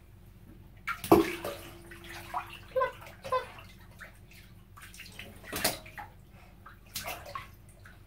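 Bath water sloshing and splashing as a child shifts about in a filled bathtub, with a sharp bump about a second in that rings briefly, and another splash a little past the middle.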